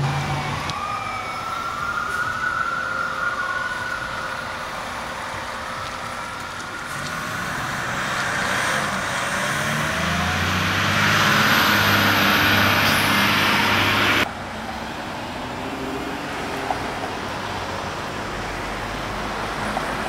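Emergency vehicle siren wailing, its pitch rising and falling, as the vehicle pulls away. A louder stretch of engine noise and hiss follows and cuts off suddenly about two-thirds of the way through, leaving steady street noise.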